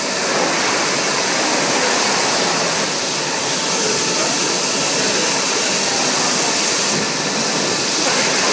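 1500 mm leather shaving machine running with a loud, steady rushing whir as a hide is worked through it.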